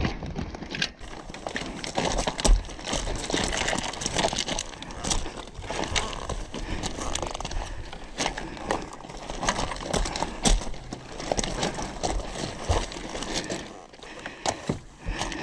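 Boots crunching and scuffing on loose crushed-stone gravel as someone walks around a motorcycle, in a run of irregular clicks and crackles.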